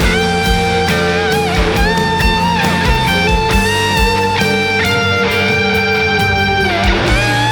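Worship band playing an instrumental passage: a sustained electric guitar lead with slow bends between notes over a steady drum beat and bass.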